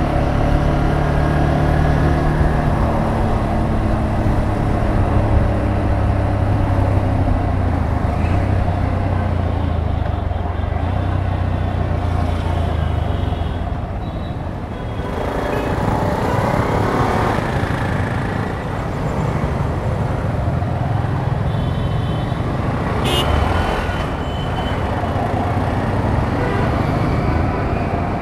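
Motorbike engine running as it rides through city traffic, with the steady rumble of surrounding vehicles. The engine pitch shifts and rises for a couple of seconds about halfway through.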